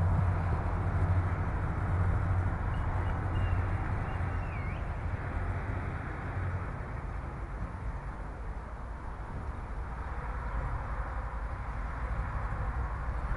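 Outdoor background noise: a steady low rumble with a hiss over it. The rumble is heavier in the first half and eases off about halfway. A faint high chirp comes about four seconds in.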